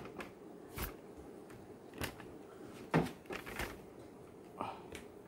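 Handling noise from a small plastic motion-sensor LED lamp held and moved in the hand: about half a dozen soft clicks and knocks spaced out over a few seconds, over a faint steady background hum.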